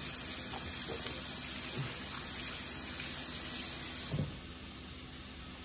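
Kitchen faucet running water over gloved hands being rinsed at the sink. About four seconds in, the water sound drops away to a quieter steady hiss.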